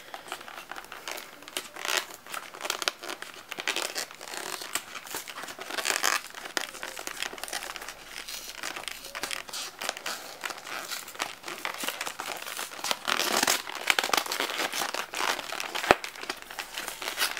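Cardboard packaging of a trading-card theme deck box being worked open by hand: irregular crinkling, scraping and tearing throughout, with a sharp click near the end.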